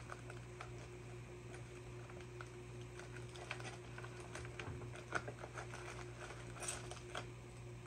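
Chainsaw chain links clicking and rattling in short scattered bursts as the chain is worked onto the guide bar and drive sprocket by hand, busiest in the second half, over a steady low hum.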